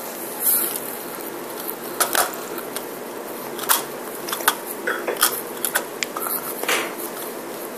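Scattered clicks and taps of a small plastic toy being handled, over a steady hiss.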